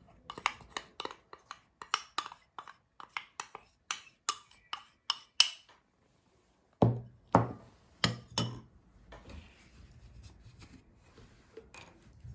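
Metal spoon and ceramic bowl clinking against each other and the pot rim as cornstarch is tapped out: a quick run of light clinks, about three a second, then after a short pause four heavier knocks.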